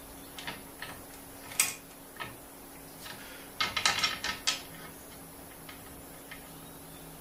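Light metallic clicks and taps as dome-head nuts are hand-tightened on the light fitting's threaded studs, a few scattered ones and then a quick flurry about three and a half seconds in.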